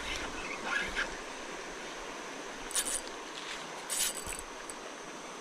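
Steady rush of stream water, with a few short sharp clicks around the middle and faint short chirps in the first second.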